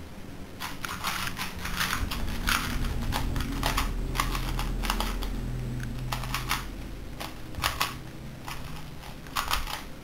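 A plastic 3x3 Rubik's cube being turned by hand: irregular clicking and clacking of its layers in quick clusters, over a low steady hum.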